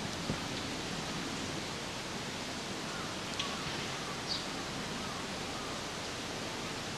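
Steady outdoor background hiss, with two faint short high chirps around the middle.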